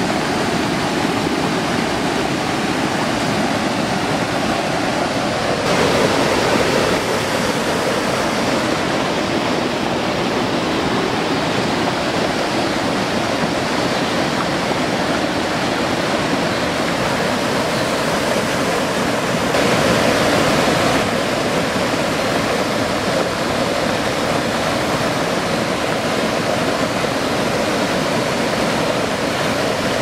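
Water pouring over a lake spillway's rock ledge in a small waterfall: a steady, loud rush that swells briefly twice, about six seconds in and again around twenty seconds in.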